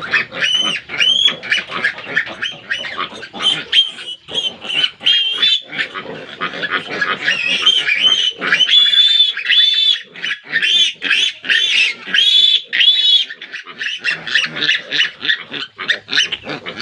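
Three-day-old piglets squealing loudly while being caught and held for an iron injection: a near-continuous run of high squeals, each rising then falling in pitch.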